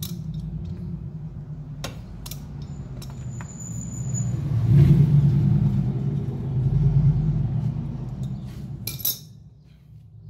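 A few sharp metal clinks of an adjustable wrench against the oil-filter housing cap, over a low steady rumble that swells in the middle and stops abruptly near the end.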